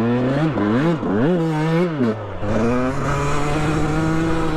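Dirt bike engine revving: several quick rises and falls in pitch in the first couple of seconds, then held steady at one pitch, climbing again near the end.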